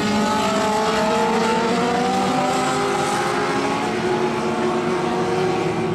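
A pack of Legends race cars, each powered by a Yamaha four-cylinder motorcycle engine, running hard as they pass. Several engine notes overlap, rising in pitch over the first few seconds as the cars accelerate, then holding steady.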